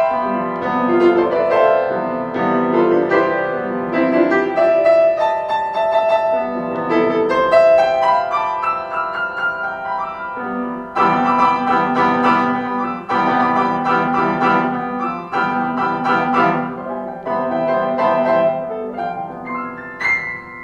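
Piano playing a continuous flow of struck notes and chords. Right at the end a single high ringing tone comes in as the playing fades.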